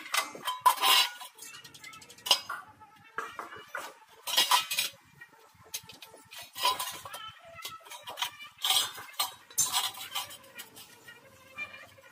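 Thin galvanized steel C-channel and a steel square clinking and scraping against each other and the concrete as they are handled, in short metallic clatters about every two seconds.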